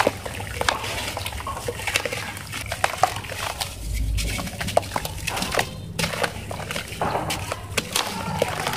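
Lumps of dry cement crumbled by hand over a tub of water: gritty crackling with many small splashes and plops as crumbs and chunks drop into the water.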